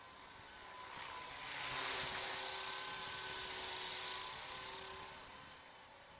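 Electric 450-size RC helicopter (EXI 450 Squadron) flying low past overhead, its motor and rotor whine over a rush of blade noise. The whine swells over the first two seconds, is loudest in the middle as the helicopter passes close, and fades away over the last two seconds.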